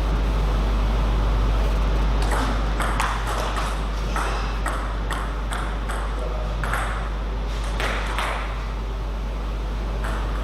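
Table tennis rally: the ball clicking sharply off paddles and table in quick succession, about two or three clicks a second, starting about two seconds in and stopping about eight seconds in. A steady low hum runs underneath.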